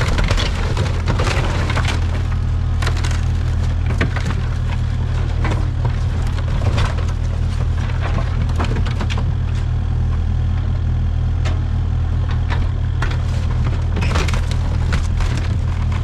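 Wood cracking and splintering again and again as a Kubota excavator's bucket crushes old kiln timbers and sheet-metal roofing, over the excavator's diesel engine running steadily.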